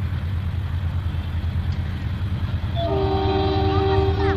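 A low steady rumble, then about three seconds in the air horn of an approaching Pakistan Railways GE RGE-24 diesel locomotive starts sounding a steady multi-note chord, held through the end. The horn sounds like a GMU-30's.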